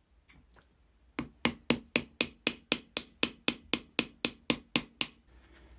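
Wooden paddle slapping the wall of a hand-built terracotta crank clay pot, a steady run of sharp pats at about four a second, compressing and smoothing the clay. The pats start about a second in and stop shortly before the end.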